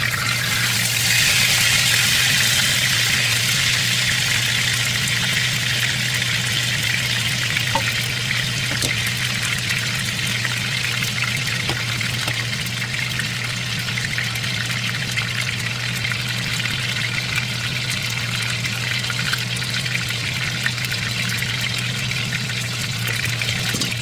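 Chicken pieces frying in hot oil in a pan, a steady sizzle throughout, with a steady low hum underneath.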